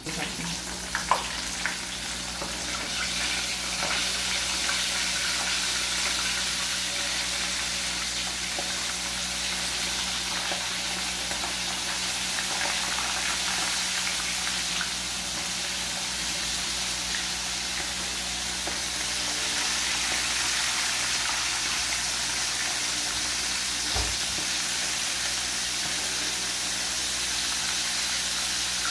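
Flour-breaded bluegill frying in very hot oil: a dense, steady sizzle. It starts suddenly, with a few sharp pops in the first couple of seconds, and swells over the first few seconds.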